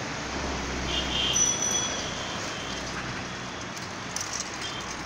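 Road traffic: the steady hum of motor vehicles, with the low engine rumble of a passing small truck over the first second and a half. A short high-pitched tone sounds about a second in.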